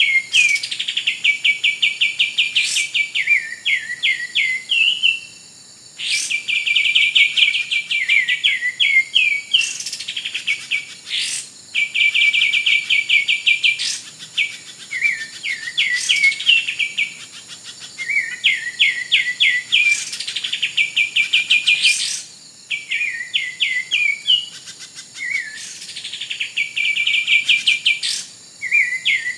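Kapas tembak (triller) song used as a trapping lure: a rapid trill of clipped notes followed by a few falling notes, the phrase repeating about every six seconds.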